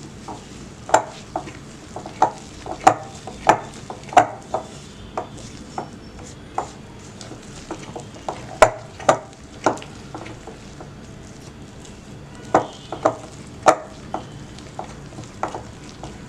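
Biscuit batter being stirred by hand in a bowl as flour is worked into the egg, butter and sugar mixture. The utensil knocks against the bowl in irregular short taps, about one or two a second, with a short lull in the middle.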